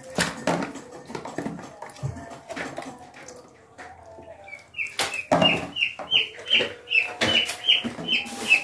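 Chicken calling: a run of short, high, repeated calls, about two or three a second, through the second half. Clicks and knocks from handling raw chicken pieces in a plastic tray sound through the first half.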